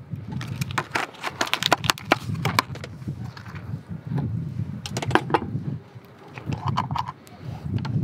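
A thin plastic food tray crinkling and clicking in quick runs as sliced green onions are shaken out of it, then a short second run of clicks and knocks about five seconds in as containers are handled on a wooden board. A low rumble sits underneath.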